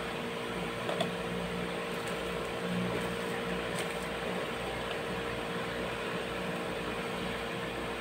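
Steady low hum with an even hiss, like a fan or other small motor running in the room, with a faint click about a second in.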